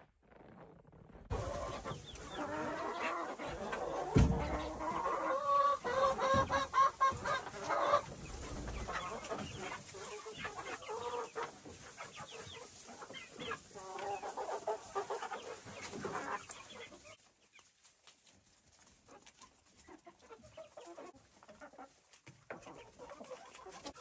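A flock of chickens clucking, busiest and loudest for the first two-thirds, with a thud about four seconds in. The clucking drops to faint about seventeen seconds in.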